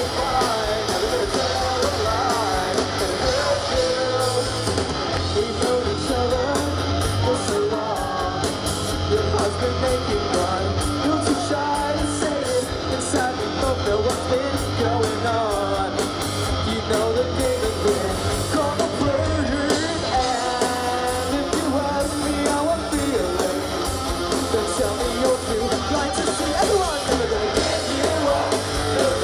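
Live rock band playing loud, unbroken music with electric guitar and drums through the PA, heard from within the crowd.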